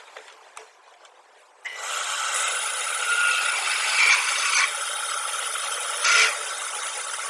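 Metal lathe starting about two seconds in and spinning a metal bar while a twist drill bores into its end: a steady, loud grinding hiss of the drill cutting metal, louder at moments.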